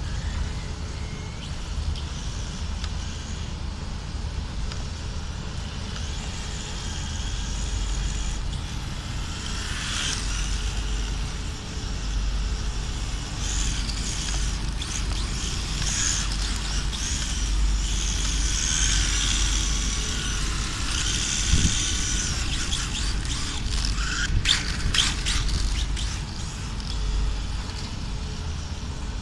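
1/10-scale brushless electric RC car running on concrete, its motor whining high and shifting in pitch as it speeds up and slows, loudest through the middle, over a steady low rumble.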